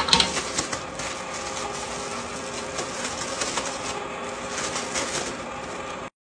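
Plastic zip-top bag of crushed cookies crinkling and rustling as it is handled and pulled open, with a faint steady hum underneath. The sound cuts off suddenly near the end.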